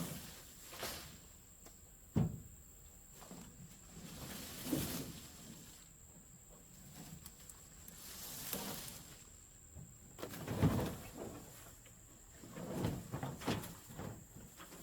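Scattered knocks and thumps, the loudest about two seconds in and again past the ten-second mark, with bouts of rustling, over a faint steady high-pitched tone.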